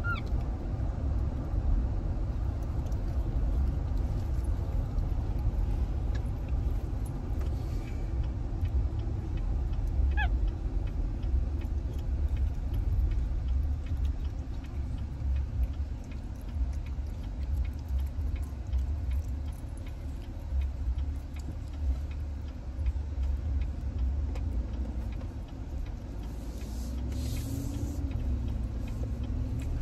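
Steady low rumble of road and engine noise heard from inside a moving car. A faint wavering tone joins in over the last few seconds.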